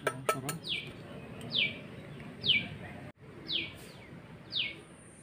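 A small bird calling again and again: five short, falling chirps about a second apart. Near the start, a few light metal clinks as a stainless-steel tiffin box lid is pried open with a knife.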